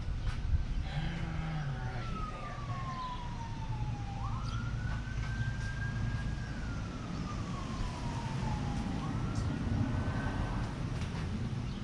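Emergency-vehicle siren wailing: one tone that rises quickly, holds high for a second or two, then slides slowly down, repeating about every five seconds. It sounds over a steady low rumble.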